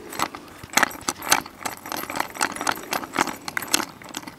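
Irregular clicks and rattles of small hard parts being handled, as a child's broken toy with its wheel off is fiddled with and fitted back together.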